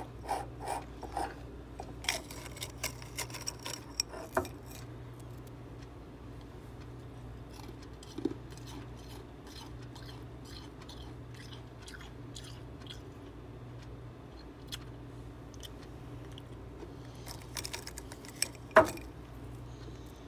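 Freezer frost being crunched and chewed: a run of crisp crunches in the first few seconds, sparse small crunches after, and another cluster near the end with one loud crunch. A steady low hum runs underneath.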